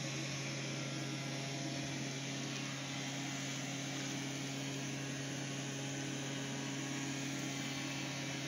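Honda RC51 SP2's 90-degree V-twin idling steadily through Yoshimura RS-3 stainless slip-on exhausts, shortened by three inches, with no revving.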